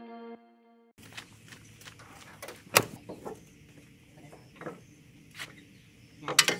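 Scattered clicks and knocks of trailer straps and fittings being handled at an aluminum jon boat on its trailer, with one sharp knock nearly three seconds in and a quick cluster of knocks near the end. The tail of an ambient music chord fades out in the first second.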